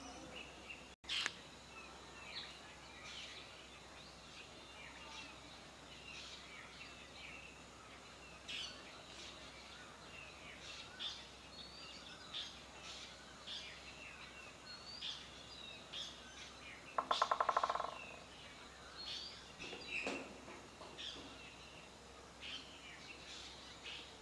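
Small birds chirping and calling on and off over a steady outdoor hiss. About a second in there is a short dropout and a sharp click, and near 17 s a loud rapid buzzing rattle lasts about a second.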